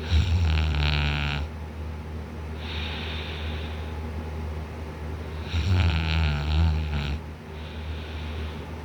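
Man snoring loudly in deep sleep, lying on his back with his mouth wide open. Two breath cycles about five seconds apart, each a loud snore followed a second or so later by a softer, breathier one.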